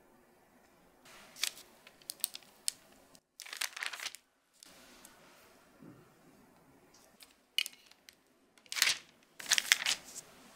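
Baking paper crinkling and crackling in several short bursts as a metal press and a star-shaped metal cookie cutter are lifted from and pressed into soft dalgona candy.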